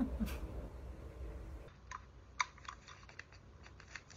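Scattered light clicks and taps of hands handling small parts and tools on a workbench. A low background hum stops abruptly about a second and a half in, after which the clicks come in a quick irregular run.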